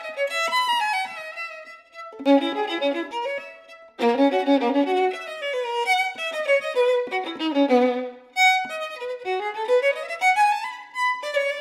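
Solo violin, the circa-1850 Charles Buthod, playing fast phrases of quick running notes down into its low register, with rising scale runs in the second half and short breaks between phrases.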